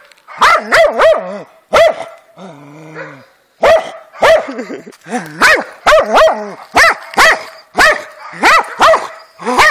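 A dog barking repeatedly and excitedly at a hedgehog curled into a defensive ball, in quick loud volleys of short barks, with one pause of about a second and a half near the start.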